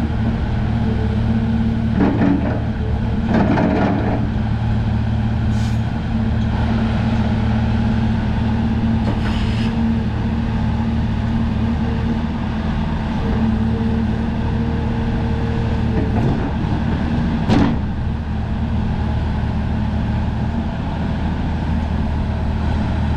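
Diesel engine of a Hyundai R340L hydraulic excavator running steadily, with a few brief louder noises on top, the sharpest about two-thirds of the way through.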